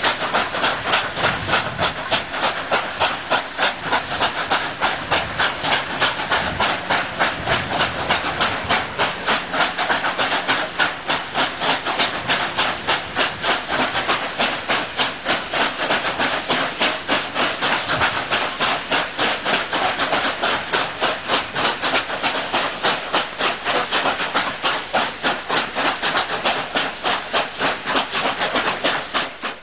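Double-headed steam locomotives, an NSWGR 36 class 4-6-0 and a 59 class 2-8-2, working hard up a steep grade. Their exhaust beats come in a rapid, even rhythm, several a second.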